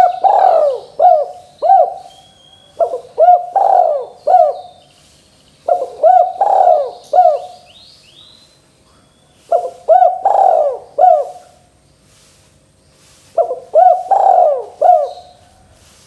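Spotted dove (tekukur) cooing: five phrases of four or five short coos each, a few seconds apart. Faint high chirps run in the background.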